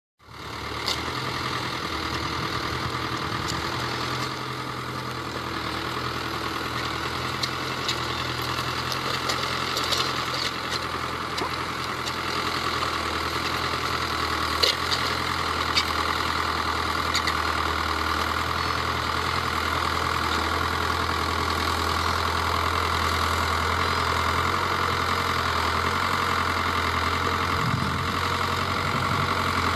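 Tractor engine running steadily with a constant low hum, with a few short clicks or rattles now and then.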